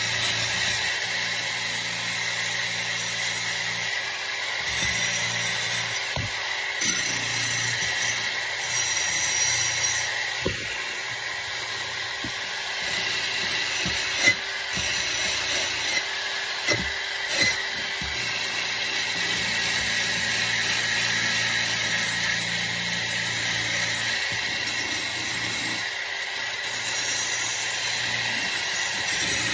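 Wire wheel on an electric drill spinning against a rusty steel trowel, scrubbing off corrosion: a steady motor hum under a harsh scratching hiss, with a few brief knocks partway through.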